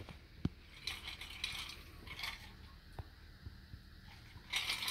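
Quiet handling noise while a drink is sipped from a glass: a few faint soft clicks and rustles, then a louder crackling rustle near the end.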